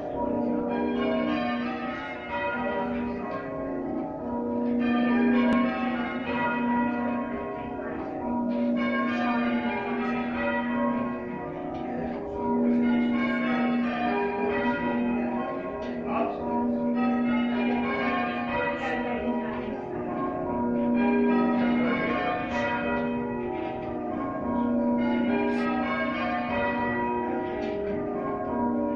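A ring of church bells rung by a team of bell ringers: a continuous stream of overlapping bell strokes, with the deepest bell coming round every few seconds.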